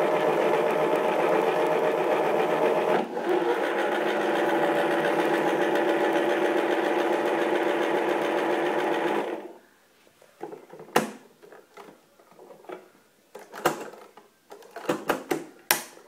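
Battery-powered plastic toy washing machine running, its small motor turning the drum with a steady whir that dips briefly about three seconds in and stops suddenly about nine seconds in. A few scattered clicks and knocks follow near the end.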